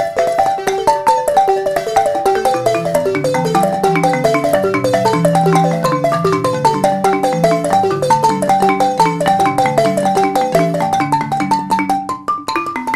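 Background music: an upbeat tune of quick, plucked-sounding mallet notes like a marimba over a bass line.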